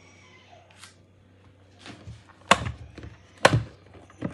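A few hard knocks on a hard surface, the two loudest about a second apart near the middle, with lighter taps around them.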